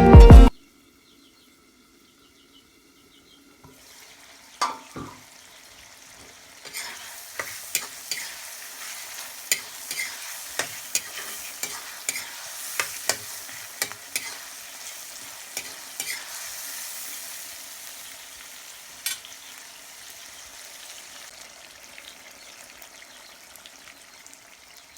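Pork frying in a pan with a steady sizzle, stirred with a spatula that scrapes and clicks against the pan many times, thinning out and fading near the end. A music track cuts off just as it begins.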